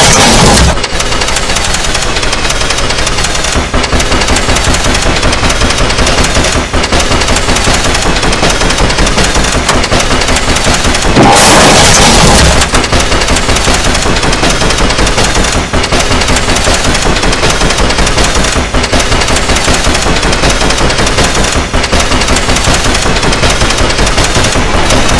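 Loud, heavily distorted remix audio: a sample chopped into a very fast repeating stutter, with a brighter, louder burst about eleven seconds in.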